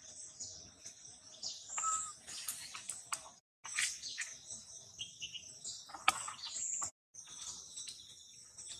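Birds chirping over a steady high insect drone, with a few sharp clicks scattered through it. The sound cuts out completely twice for a moment.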